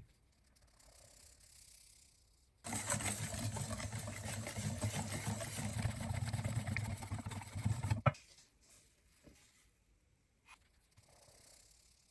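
A wire whisk beating flour into a milk mixture in a stainless steel bowl: a fast, continuous scraping and clattering that starts about two and a half seconds in and stops about five seconds later with a sharp tap.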